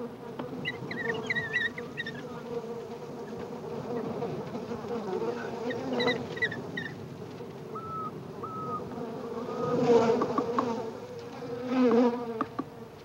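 A swarm of bees buzzing steadily and densely, with several short high-pitched cries from the African wild dogs they are stinging, heard about a second in, in the middle and near the end.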